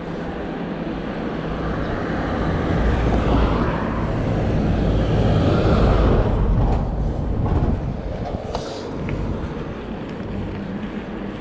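Wind rush and tyre rumble from a Rockrider E-ST 900 electric mountain bike being ridden on a flat dirt path, building to its loudest about six seconds in and then falling away. This is a run to bed in new brake pads.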